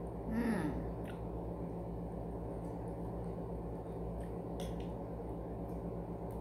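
Quiet eating at a table over a steady low hum: about half a second in a brief vocal sound falling in pitch, then a few faint light clicks of a spoon touching the plate.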